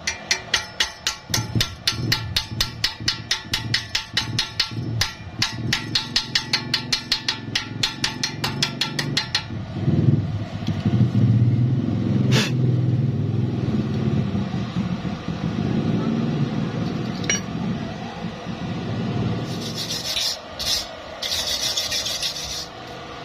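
Metal being filed or rubbed by hand in quick, even strokes, about three a second, for the first nine seconds or so. It then turns into a steadier, rougher scraping. Near the end there is a hissing sound that stops and starts.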